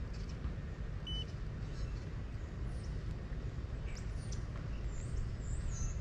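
Outdoor ambience: a steady low rumble, like wind or distant traffic, with a few faint, short chirps from small birds.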